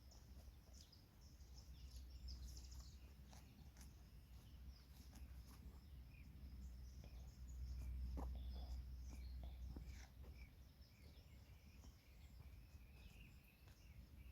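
Faint forest ambience: scattered bird chirps and calls over a low steady rumble that swells about halfway through, with a few light clicks.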